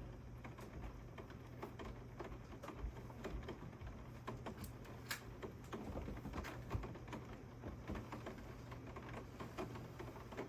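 Raindrops tapping on a surface in irregular, scattered ticks, over a faint steady low hum.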